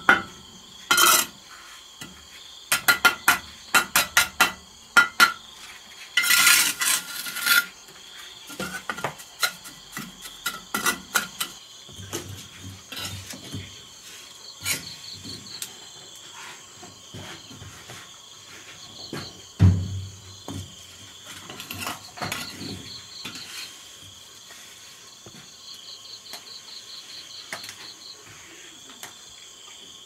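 Bricklayer's steel trowel clinking and tapping on bricks and scraping through mortar: a run of sharp knocks, a scraping stretch about six seconds in, and a single low knock about twenty seconds in. Insects keep up a steady high trill with pulsed chirps throughout.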